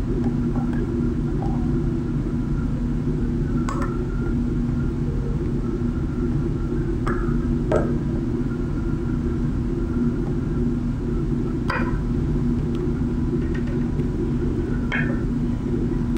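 Steady low hum with a constant pitch, with a few short, light clicks and taps of small parts being handled, spaced every few seconds.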